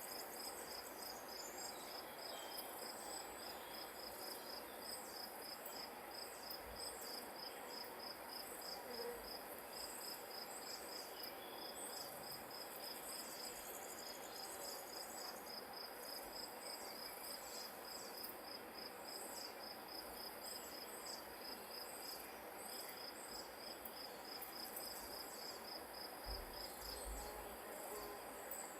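Grass insects, cricket-like, chirping in a steady fast even pulse over a soft background hiss.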